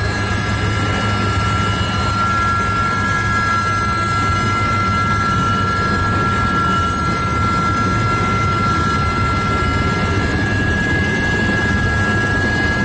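A loud, steady mechanical drone with several high, steady whines over it.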